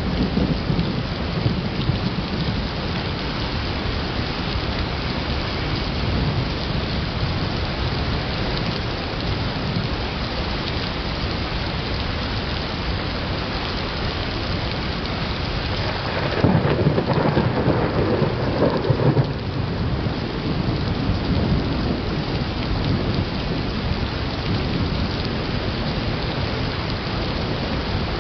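Steady heavy rain falling during a thunderstorm, with a louder rumble of thunder lasting about three seconds a little past the middle.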